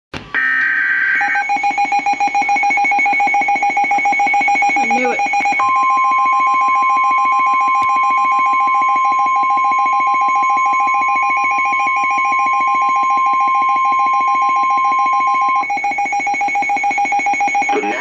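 NOAA Weather Radio emergency alert: a brief two-tone digital data burst, the end of the SAME header, then the receiver's alarm beeping rapidly and continuously. About five seconds in, the steady 1050 Hz weather radio warning tone joins for ten seconds and then stops, signalling a warning-level alert, here a tornado warning.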